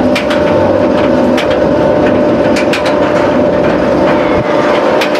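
Wildfire roller coaster train moving through the station: a steady machine hum with scattered sharp clicks and clacks.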